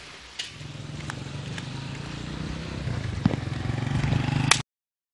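Small motorcycle engine running as it approaches, getting steadily louder, then cutting off abruptly near the end.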